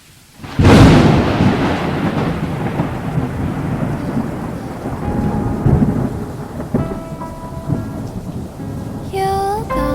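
A sudden thunderclap about half a second in, rolling and fading into the steady noise of rain. Music comes in faintly later and grows louder near the end.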